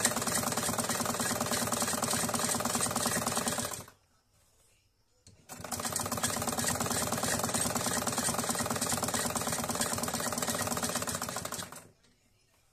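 Black domestic straight-stitch sewing machine running at a fast, even stitching rhythm as it sews the folded edge of a kurti's side slit. It stops about four seconds in for a second and a half, then runs again until shortly before the end.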